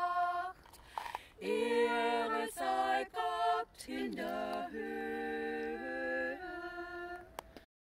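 Unaccompanied voices singing a slow song a cappella, in held notes with short breaks between phrases. The singing cuts off abruptly near the end.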